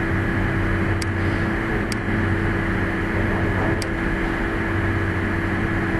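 Steady hum and hiss of room noise, with three faint computer mouse clicks about one, two and four seconds in.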